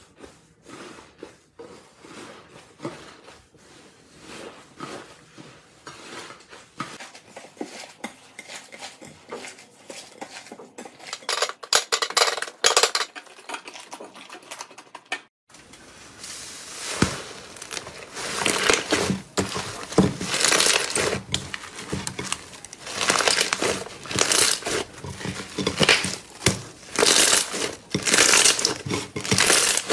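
Hands squeezing and kneading slime, making dense crackling, clicking pops. The crackling is quieter in the first half and louder after a sudden break a little past halfway.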